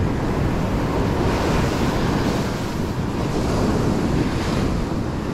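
Ocean surf breaking and washing up a sand beach in a steady rush, with wind buffeting the microphone.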